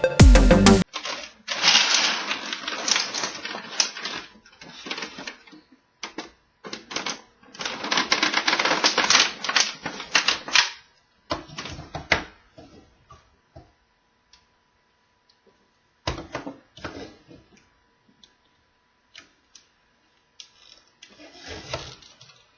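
Rapid plastic clicking and rattling in two dense stretches of a few seconds each, with scattered single clicks and knocks between and after, from toy tools being handled.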